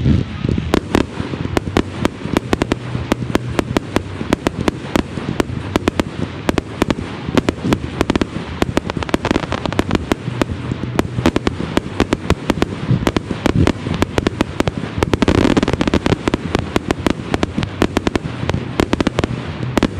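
Barrage of 1.4G consumer fireworks: a rapid, continuous string of overlapping launch thumps and bursting bangs from many cakes and shells firing at once, growing denser and louder about three-quarters of the way through.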